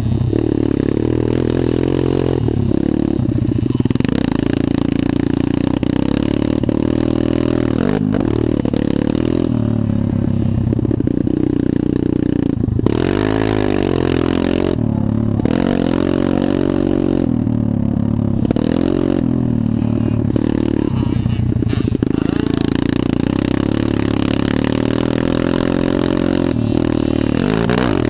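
Motocross dirt bike engine running hard around the track, its pitch rising and falling again and again as the rider works the throttle and gears through the corners and straights, heard from a camera mounted on the bike.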